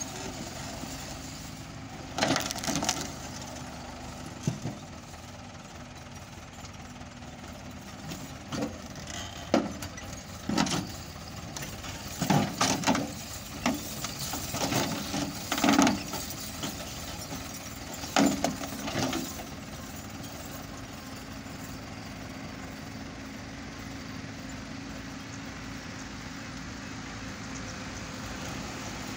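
Tractor engine running steadily as it drags a land leveller through loose soil. Irregular knocks and clatter come in clusters from about two seconds in until near the twenty-second mark.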